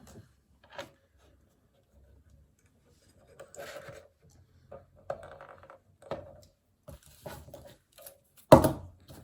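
Small taps, scrapes and rustles of a wire and soldering tools being handled on a workbench while the wire is pre-soldered (tinned), with one sharp knock near the end.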